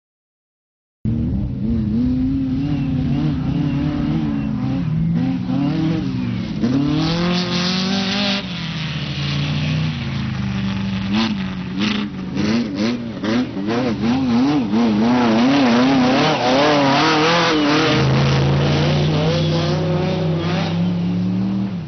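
Off-road safari race cars' engines revving hard, starting about a second in, the pitch rising and falling again and again as they accelerate and change gear over rough ground. A run of sharp knocks comes through about halfway, and the engine note holds steadier near the end.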